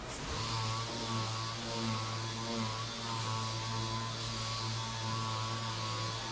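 A small electric power tool motor starts up just after the beginning and runs with a steady hum and hiss, its pitch wavering slightly.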